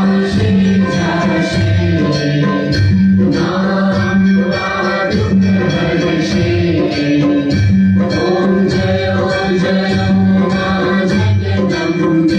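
Devotional aarti song: voices singing over a steady, regular percussion beat.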